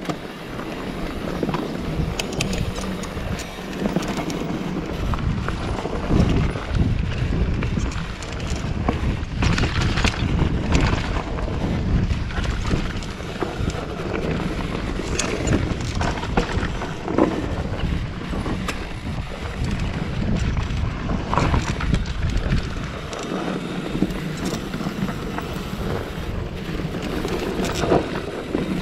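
Wind rumbling on the camera microphone as a mountain bike rides over a dirt trail, with frequent knocks and rattles from the bike and tyres.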